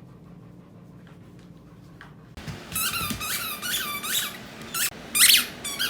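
Dog's squeaky toy squeezed over and over, many short high squeaks a second, starting a little over two seconds in; before that only a low steady hum of the room.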